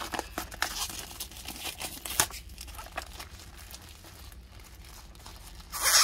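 A product box being worked out of its slide-off sleeve by hand: scattered small scrapes, taps and crinkles of packaging, with one louder scraping rustle near the end.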